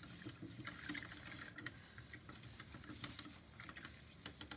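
Faint, irregular scratching and light tapping: small handling noises.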